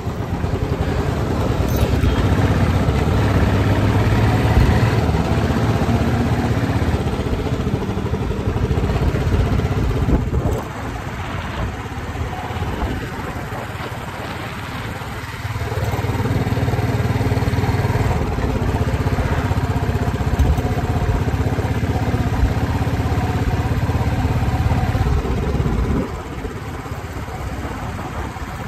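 Motorcycle engine running steadily as the bike is ridden along the road, heard from the rider's seat. It drops in level about ten seconds in, comes back up a few seconds later, and drops again near the end.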